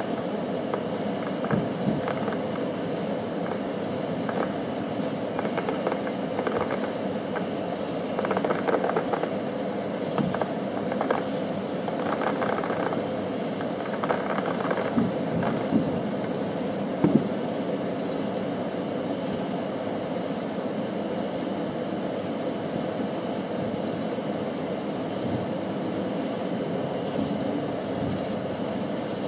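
Distant fireworks: scattered faint pops and crackles through the first half, with a sharp double bang about 17 seconds in, over a steady low hum of background noise.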